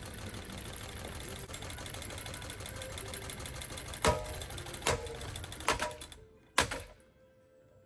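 Ceiling fan running with a fast, steady mechanical rattle. About four seconds in come four loud knocks, and the rattling stops abruptly about six seconds in.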